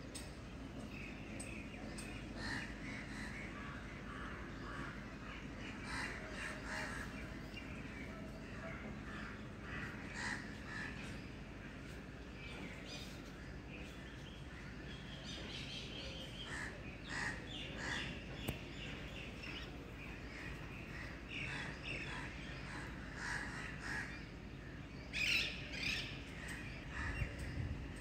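Birds calling on and off, many short calls, the loudest near the end, over a steady low background hum.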